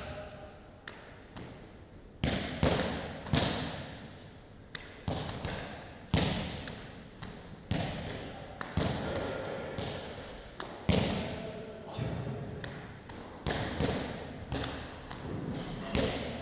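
Medicine ball thrown up against a wall-ball target and caught during wall-ball reps: irregular thuds and slaps every one to three seconds.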